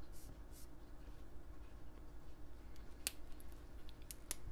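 Faint strokes of an Arteza water-based brush pen tip on paper, then a few sharp plastic clicks as the pen is handled to switch to its other end, once about three seconds in and twice near the end.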